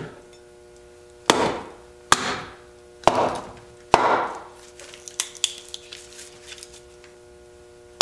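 Small hand axe chopping the corners off a split block of hard locust wood held upright on a stump: four sharp chops, about one a second, then lighter taps and knocks.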